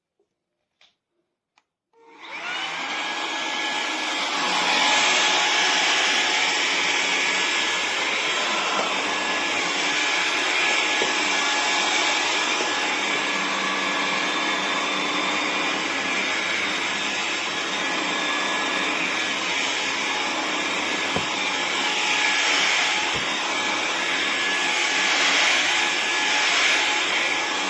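Hoover HF1 Plus cordless stick vacuum switched on about two seconds in, its motor spinning up over about a second and then running steadily with an airy rush and a high whine.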